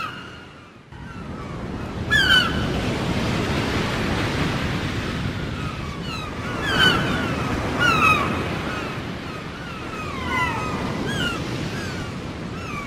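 Surf washing steadily on a beach, with a bird giving short, sharp calls that fall in pitch, repeated several times. The surf comes up about a second in.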